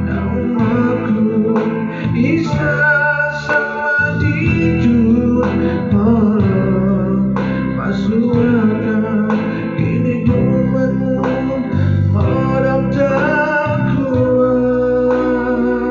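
A man singing a Bisaya-language song into a microphone over his own arranger-keyboard accompaniment, with sustained chords and a steady backing rhythm.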